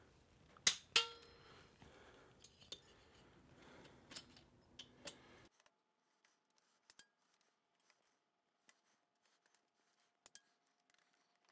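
Torque wrench and socket on the lifter block cover screws of a Milwaukee-Eight V-twin: a few sharp metal clinks about a second in, one ringing briefly, then scattered light ratchet ticks as the screws are tightened to 140 inch-pounds.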